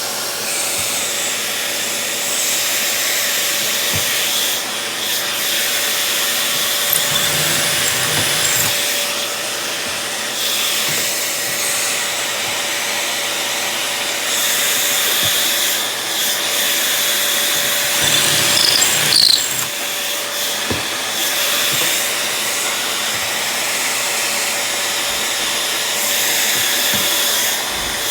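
A power tool running steadily in a woodworking shop, its motor noise full of high hiss with a steady hum underneath, easing off and picking up again a few times.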